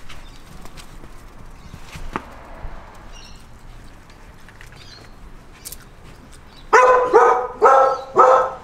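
Dog barking: a quick run of about four loud, high-pitched barks, about two a second, starting near the end. Before that there are only faint scattered clicks and scuffs.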